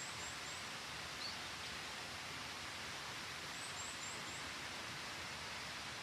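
Steady rush of stream water flowing over rocks. A small bird gives short high chirps in quick runs of three or four, once at the start and again about two-thirds of the way through.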